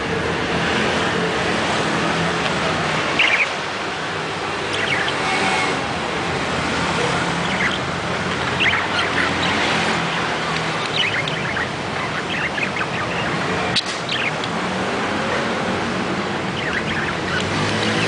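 Budgerigars chirping and chattering in short, scattered high calls over a steady background noise, with one sharp click about three-quarters of the way through.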